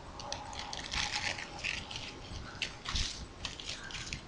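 Plastic-wrapped pads being handled and packed: irregular rustling and crinkling of the wrappers, with a few light clicks, the loudest rustle about three seconds in.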